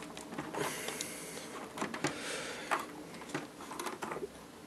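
Faint clicking and scraping of fingers working a small voltage-regulator daughterboard loose from its slot on a Power Macintosh G3 motherboard, with a few short clicks.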